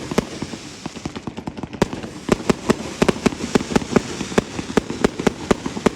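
Fireworks going off in an irregular barrage: many sharp pops and bangs, several a second, over a steady crackle from many shells at once.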